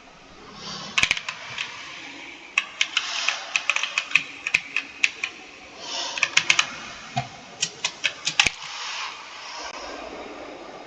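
Computer keyboard being typed on: irregular runs of sharp key clicks, several quick strokes at a time with short pauses between.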